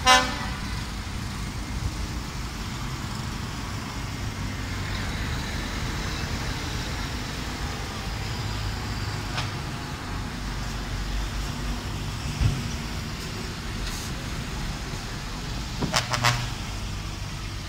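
Decorated trucks driving slowly past with a steady low engine rumble. A horn sounds briefly right at the start, and two short horn toots come near the end.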